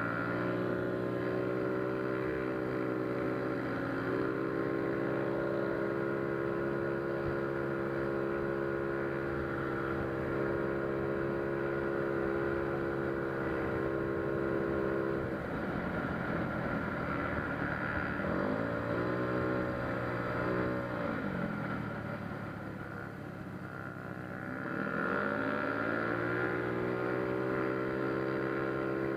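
Single-cylinder four-stroke engine of a 160cc Yamaha Mio Soul scooter, bored out to 59 mm with big valves and a 28 mm carburettor, running at a steady pitch. About halfway through the revs fall, dip and rise again. The engine then runs quieter for a couple of seconds before its pitch climbs back up.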